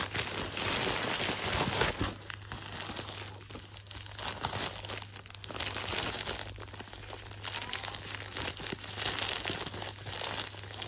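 USPS Priority Mail Express envelope crinkling and rustling as it is handled and pulled at to get it open, in irregular bursts that are densest in the first couple of seconds.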